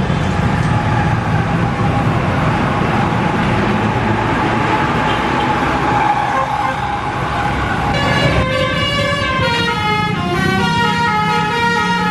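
Traffic and engine noise, then about eight seconds in a bus's Basuri telolet horn starts playing a tune of stepping notes.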